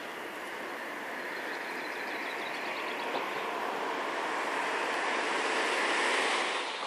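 A train approaching on the line: a steady rushing noise that grows gradually louder.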